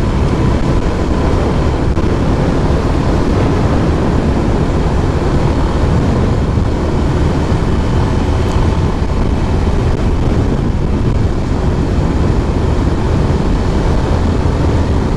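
Yamaha FZS single-cylinder motorcycle engine running steadily at cruising speed, heard from the rider's seat, mixed with a steady rush of wind over the microphone.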